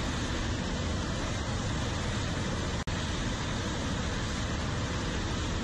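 Steady, loud jet noise from an F/A-18 fighter's twin engines held at launch power on the carrier catapult, waiting to be shot off. It cuts out for an instant near the middle.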